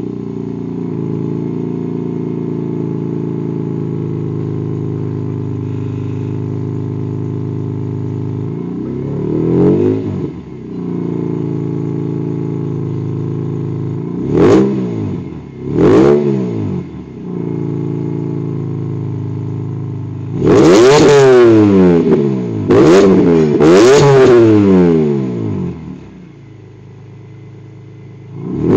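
BMW M3 engine with a custom exhaust, just after a cold start, holding a steady high idle and blipped a few times: one short rev about ten seconds in and two around fifteen seconds. Three longer, louder revs follow past twenty seconds before it settles to a quieter idle, then another rev right at the end.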